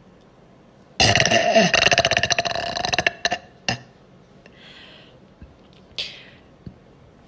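A girl's long, loud burp, starting about a second in and lasting around two seconds, with a rattling texture and a pitch that falls. A short click follows soon after.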